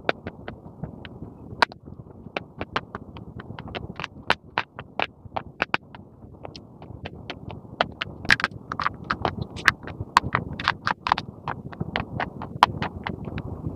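Sticks of school chalk being bitten and chewed close to the microphone: a quick, irregular run of sharp crunches and cracks over a softer crackle of grinding. The crunching is densest about eight to eleven seconds in.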